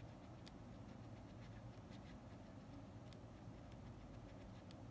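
Near silence: a faint steady low hum, with a few faint ticks as a cotton swab scrubs sticky residue inside an opened cassette Walkman.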